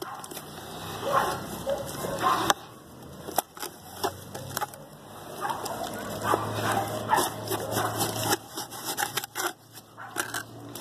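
Mason's trowel stirring and scraping wet cement-and-sand mortar in a gourd bowl, with irregular scraping clicks. A few short high-pitched cries come through at times.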